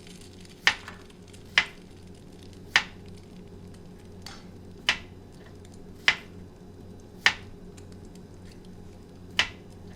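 Eight sharp, irregularly spaced taps of kitchenware against a bowl or pan while scrambled eggs are made, over a steady low hum.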